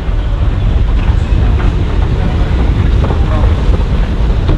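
Airport concourse ambience: a steady low rumble with indistinct voices in the background.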